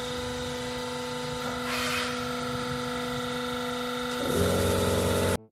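Electric hydraulic power pack of an A-frame frame-clamping press, its motor and pump running with a steady hum. About four seconds in, as a valve lever is worked, the hum grows louder and deeper. Near the end it cuts off abruptly.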